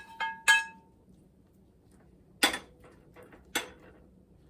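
Metal spoon clinking and scraping against a skillet while scrambled eggs are served onto a plate: three quick ringing clinks at the start, then a couple of sharper knocks about two and a half and three and a half seconds in.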